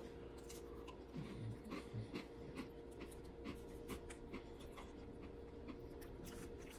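A person chewing a bite of chocolate-dipped butter shortbread cookie: faint, irregular crunching.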